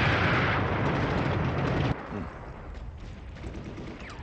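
Battle sound of a mock attack: a loud, dense rumble of gunfire and blasts over tracked armoured vehicles, cut off abruptly about two seconds in. After that, only fainter, scattered distant firing.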